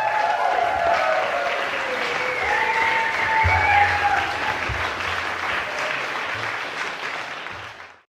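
Audience applauding, with a few wavering voices cheering over it; the applause fades away and stops near the end.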